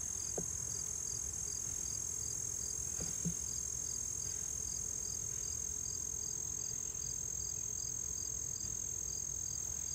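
Insects chirping steadily in the background: a continuous high trill with a regular chirp about three times a second. Two faint knocks sound about half a second and three seconds in as the hive is worked.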